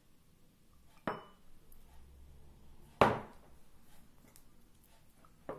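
Kitchenware knocking on a table twice, once about a second in and once, louder with a short ring, about three seconds in. Near the end a metal spoon starts clinking against a ceramic bowl as honey is stirred into the mixture.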